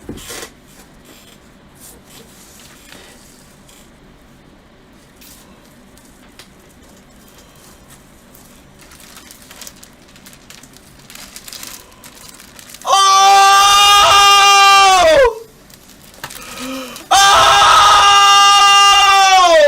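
Faint handling and rustling noises, then a man screams twice, loudly: two long held high-pitched screams of about two seconds each, the first near the end of the quiet stretch and the second just after, each dropping in pitch as it ends.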